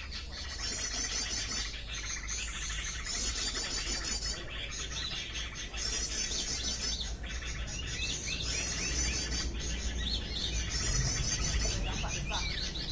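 High, rapid bird chirping in bursts of about a second, repeated every two to three seconds, with other shorter chirps and whistles between the bursts: bird calls used as a lure for trapping birds.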